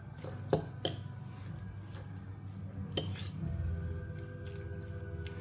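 A metal spoon clinking against a china bowl while tossing a salad: a few sharp clinks, the loudest about half a second in and another about three seconds in, over a steady low hum.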